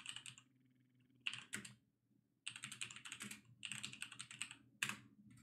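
Computer keyboard being typed on in about five quick bursts of key clicks, with short pauses between.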